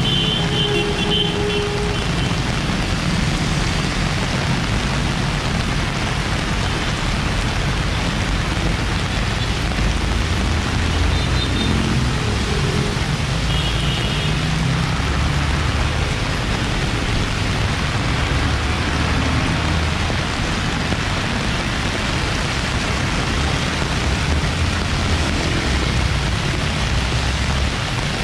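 Heavy rain pouring onto a flooded street, a steady hiss, over the low rumble of cars and motorcycles driving through standing water. A few short high tones sound near the start and again around 11 and 13 seconds in.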